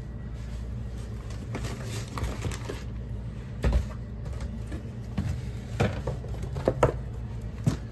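Handling noise from a cardboard box being carried while walking on a tile floor: a few sharp knocks and taps over a steady low hum.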